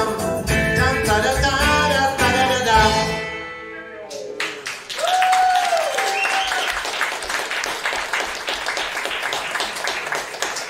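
A small live band of electric guitar, bass guitar, keyboard and drums, with singing, plays its last bars; the music ends about three seconds in. The audience then applauds, with one drawn-out cheer rising over the clapping.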